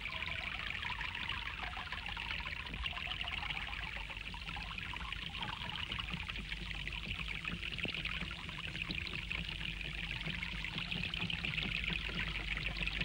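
Steady rushing trickle of running fountain water.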